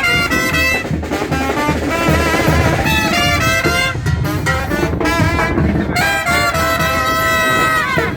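Live banda sinaloense brass band playing. The horns carry the melody in harmony over a steady low bass-and-drum beat, and a long held chord bends downward near the end.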